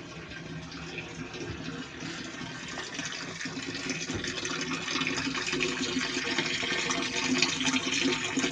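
Beer running through a plastic transfer hose into a plastic fermenter: a steady pouring and filling sound that grows gradually louder.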